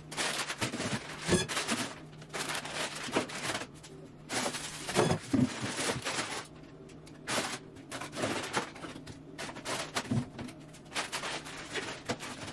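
Grocery bags and packages being unpacked: plastic rustling and items clattering as they are set down, in irregular bursts with short pauses between them.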